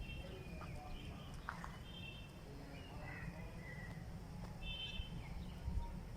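Small birds chirping faintly in short calls and brief gliding whistles, with a clump of calls about two seconds in and another near five seconds, over a steady low rumble.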